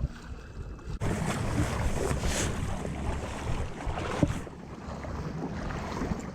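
Wind buffeting the microphone over water sloshing, a rough steady noise that gets suddenly louder about a second in.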